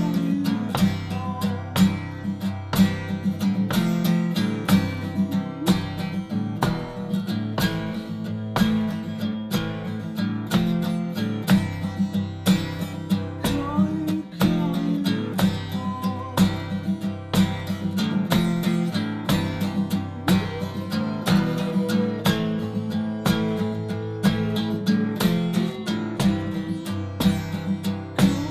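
Acoustic guitar strummed in a steady rhythm: chords ringing through an instrumental passage of a song.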